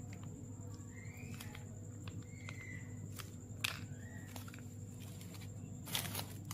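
Four short, arching chirps, likely from a bird, a second or so apart, over a low steady hum. Two sharp clicks come about halfway through and near the end.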